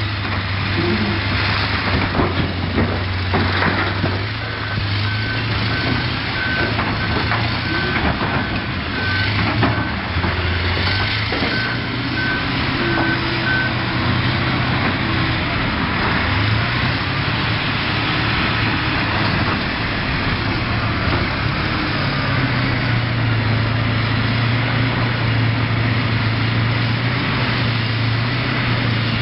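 Heavy diesel machine engine running steadily, with a back-up alarm beeping evenly for about nine seconds and starting again near the end. A few knocks come in the first few seconds.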